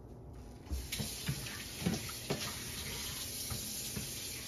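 A steady rushing hiss starts suddenly about a second in, with several light knocks of a slotted spatula against a nonstick frying pan as a pancake is flipped and lifted out.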